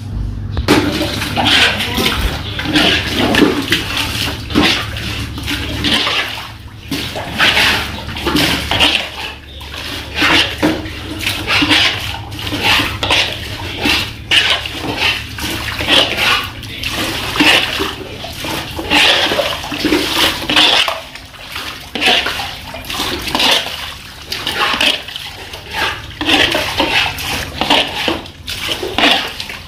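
Muddy floodwater being bailed off a concrete floor by hand: a plastic dipper scoops up shallow water and empties it into a plastic bucket, splashing again and again every second or two.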